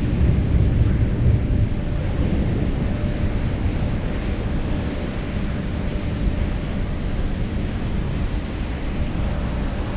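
Steady low noise of wind on the microphone over sea water washing around the boat, with a faint steady hum underneath.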